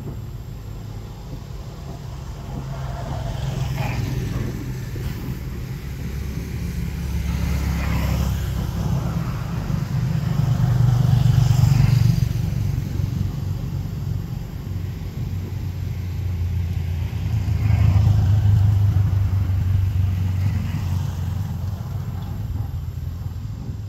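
Motor vehicles passing by: a low engine hum that swells and fades, loudest about halfway through and again about three-quarters of the way in.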